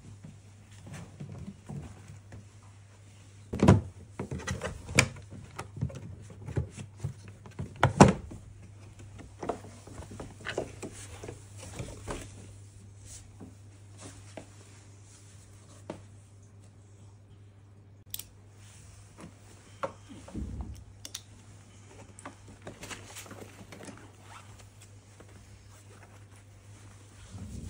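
A PLUMB hard-shell trolley case being opened and handled. There are two loud sharp snaps about four and eight seconds in, fitting its two frame latches being flipped open. Between them and afterwards come smaller clicks, knocks and zipper and fabric sounds as the lid, lining and pouches are handled.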